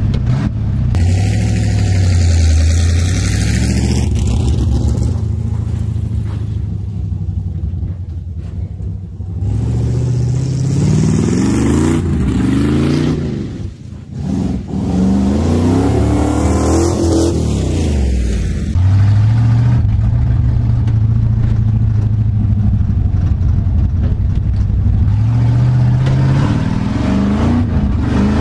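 Squarebody Chevy pickup's engine revving hard, its pitch climbing and falling again and again, as the truck does burnouts and doughnuts on grass.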